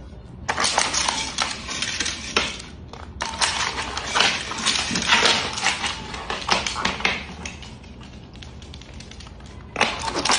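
Rapid clicking, scratching and clattering as a small dog scrambles on a hardwood floor and knocks hard plastic toys about, with a short pause about three seconds in and a quieter stretch before a last burst near the end.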